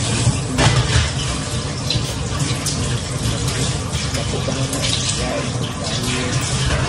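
Kitchen tap running steadily into a stainless steel sink, water splashing over raw chicken pieces being rinsed by hand under the stream, with a few brief sharper splashes.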